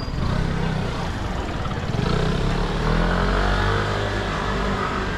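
Motorcycle engine running as it passes close by, loudest about three seconds in, over steady street noise.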